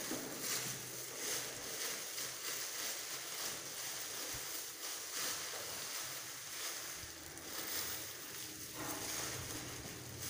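Thin clear plastic bags crinkling and rustling as gloved hands pack rice cakes into them, an uneven run of small crackles.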